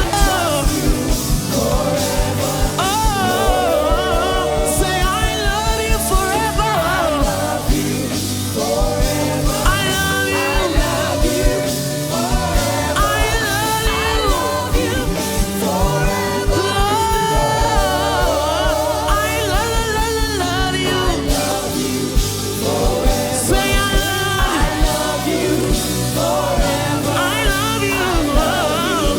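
Live gospel music: singing over a band with a steady beat.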